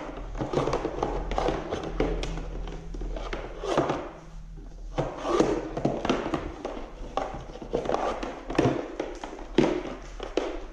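Electrical cables and cords being handled and pushed around inside a plastic toolbox: irregular rustling with many small taps and knocks of wire and plastic. A faint steady low hum sits underneath.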